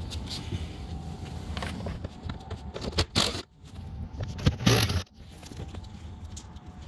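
Cordless driver running in two short bursts, about three seconds in and again just before five seconds, backing out the Torx screws that hold a car's door trim panel, with scraping and handling noise between.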